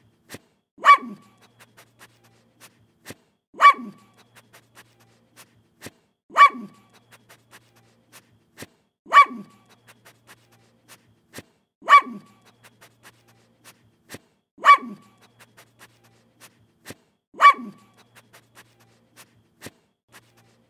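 A dog barking close up, one bark about every three seconds, seven in all, each dropping in pitch. Between the barks come faint short puffs of sniffing.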